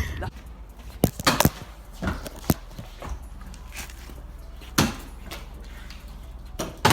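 A handful of scattered sharp knocks and clicks, a few seconds apart, over a low background.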